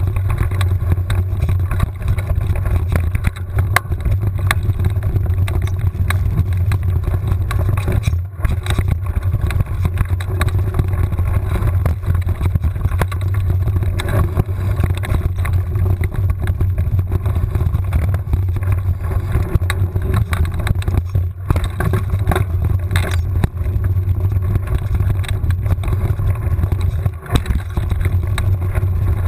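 Mountain bike riding fast down a dirt trail: steady low rumble of wind and vibration on a bike-mounted camera's microphone, with frequent knocks and rattles as the bike goes over bumps.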